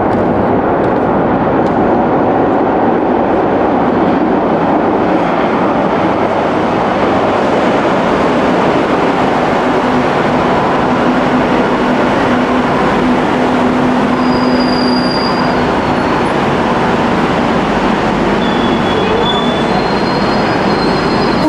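Madrid Metro train pulling into the station, a loud steady rumble of wheels on the rails. Short high wheel squeals come about two thirds of the way in and again near the end.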